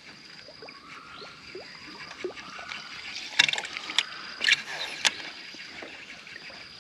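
Quiet water sounds around a kayak: small drips and trickles. About halfway through come four sharp clicks or pops, a little over half a second apart.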